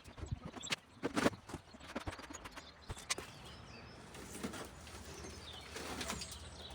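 A few sharp knocks in the first three seconds, then birds calling, with short wavering high calls toward the end.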